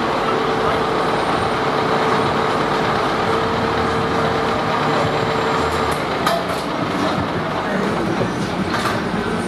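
2015 KME Severe Service fire pumper's diesel engine idling steadily, with a steady higher tone that stops about six seconds in. A few sharp metallic clanks come near the end.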